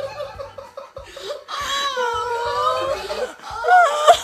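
A woman laughing and crying with joy: choppy sobbing laughter, then a long, wavering high wail in the middle and a short rising-and-falling cry near the end.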